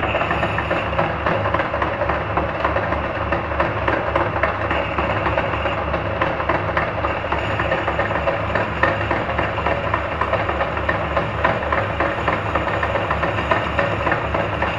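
Metal lathe running steadily, turning a motorcycle wheel hub while a cutting tool bores out its centre to seat the bearing sleeve, with a regular low pulsing from the machine.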